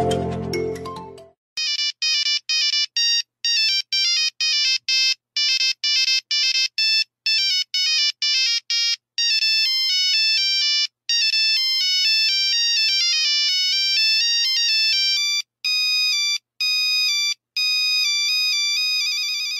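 Electronic mobile-phone ringtone for an incoming call, starting about a second and a half in: a quick melody of short, high-pitched beeping notes that turn into longer, held notes in the second half.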